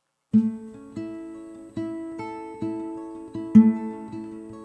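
Small-bodied acoustic guitar playing the slow opening of a song: plucked notes and chords, about one a second, each left to ring into the next. It comes in just after the start, with the strongest notes at the first pluck and about three and a half seconds in.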